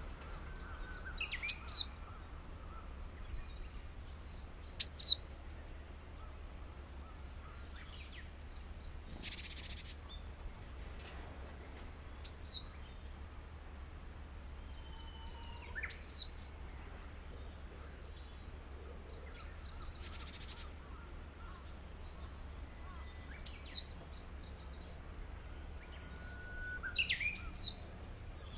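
Japanese tit giving short, sharp, high calls about every four to seven seconds, six in all, the two loudest near the start, over a faint steady high hiss. It is probably a parent bird calling insistently near the nest box.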